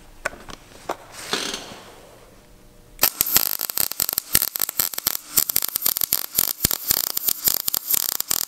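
MIG welding arc laying a short bead on steel square tubing, with a dense, irregular crackle. The arc strikes about three seconds in and cuts off just before the end, after a few quiet handling clicks.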